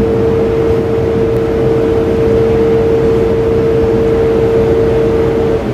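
Truck diesel engine running steadily, with a steady whine over it that stops shortly before the end.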